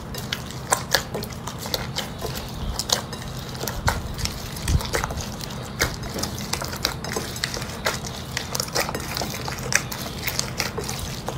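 Slime being squished and poked by hand: irregular wet clicks and small pops, with a steady low hum underneath.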